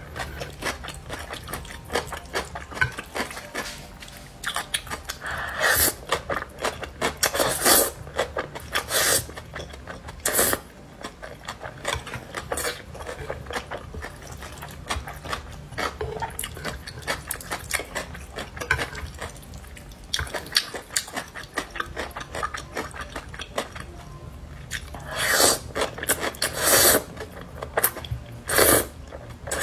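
Close-miked eating of black bean sauce noodles: wet chewing with many small mouth clicks, and loud noodle slurps, several of them in the last few seconds.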